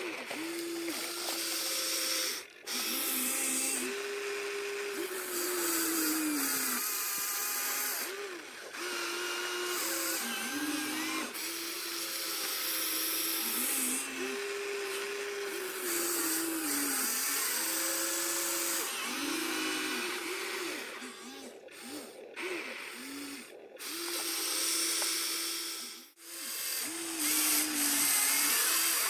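Small electric motors of radio-controlled toy excavators and trucks whining as they work, the pitch rising and falling as they speed up and slow down, with a few brief stops.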